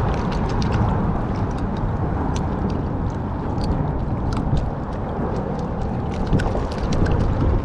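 Wind rumble on the microphone and water moving against a kayak hull, with many small scattered clicks and ticks from handling pliers and tackle.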